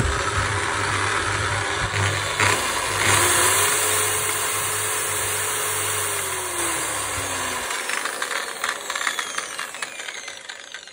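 Makita 9227C rotary polisher test-running with no pad after the bearing, rotor, switch and brushes have been replaced. There is a sharp click right at the start, then a steady motor hum and whine. From about halfway through the pitch falls and the motor winds down to a stop near the end.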